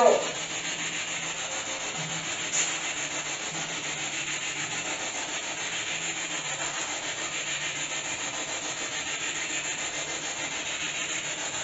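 Steady static-like hiss with a faint low hum underneath, broken once by a brief click about two and a half seconds in.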